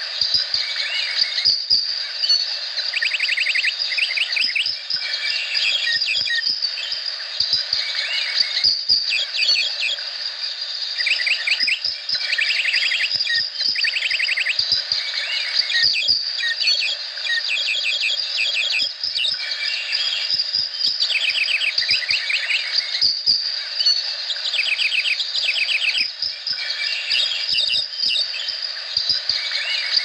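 Tropical rainforest chorus: a steady high-pitched insect drone, with repeated quick series of rapid chirping trills over it every second or two.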